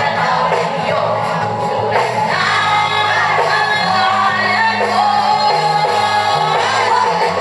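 Live reggae band music with a steady bass line and singing, with audience members singing along.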